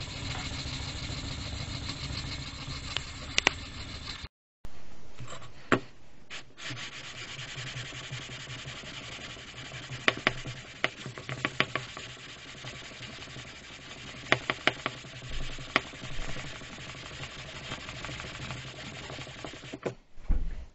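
Abrasive sanding and rubbing on a metal square, a steady scraping noise with scattered sharp clicks. It breaks off briefly about four seconds in, then carries on.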